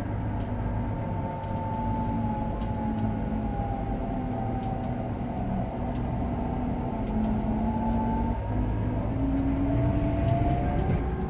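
Cabin noise of a Scania K410 double-decker coach under way: a steady low rumble of engine and road, with a hum that slowly drifts up and down in pitch.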